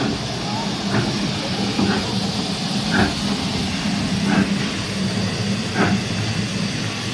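Standing steam tank locomotive hissing steadily, with a steady low hum beneath and a few irregular knocks.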